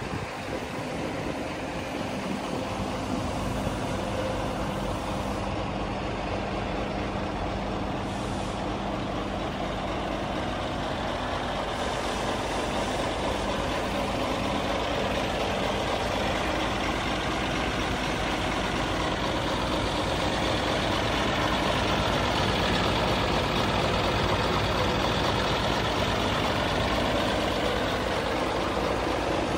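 Scania G410 street-sweeper truck idling steadily, a continuous diesel running sound heard close beside the chassis, growing slightly louder in the last third.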